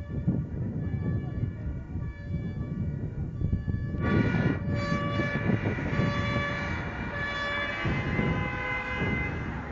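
Fire engine's two-tone siren alternating between a high and a low note over a low engine and traffic rumble, the siren growing louder about four seconds in as the engine pulls up.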